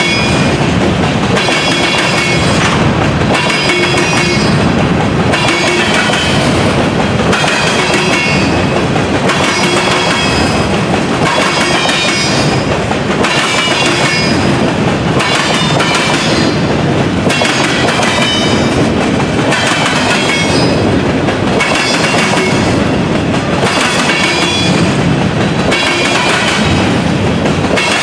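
Freight train of covered hopper cars rolling past at close range: a steady rumble of steel wheels on rail, with a rhythmic clickety-clack and metallic ringing that recurs about every second and a half as the cars' wheels go by.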